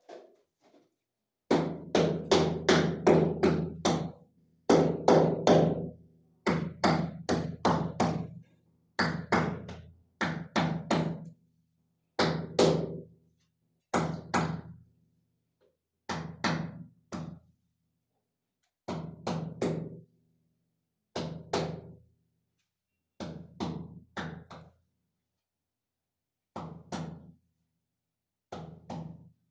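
Hands tapping ceramic wall tiles to bed them in: quick clusters of knocks every couple of seconds, each with a short low ring, loudest at first and growing fewer and fainter toward the end.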